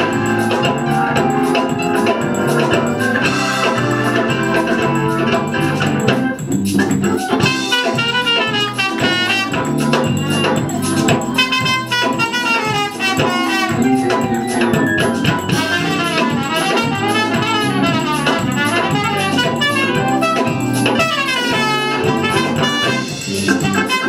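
Live band music: an organ holds chords over electric bass, drum kit and congas, and from about six seconds in a trumpet plays quick, winding runs over it.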